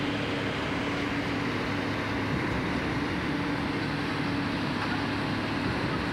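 Steady drone of construction-site machinery, an even noise with a constant low hum.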